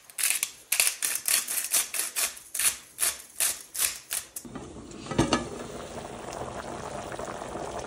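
Hand grinder of black pepper twisted over the pot, a quick run of grinding clicks about four a second for about four seconds. Then a pot of chicken and vegetables boiling at a rolling boil, with one knock shortly after.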